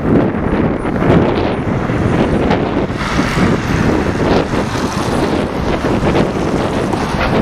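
Tram running along the street, heard from inside the car: a loud, steady low rumble that wavers slightly in level, with no pitched engine note.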